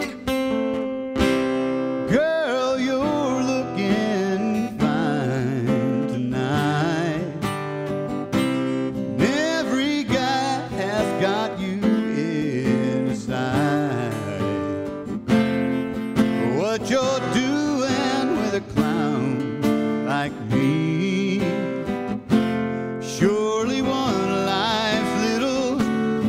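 Acoustic guitar strummed and picked, with a man singing over it from about two seconds in.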